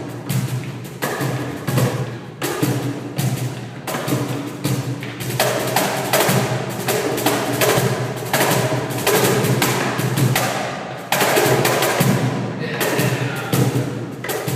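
Cajón played with the bare hands: a continuous run of strokes mixing deep bass tones with sharp, bright slaps on the wooden front.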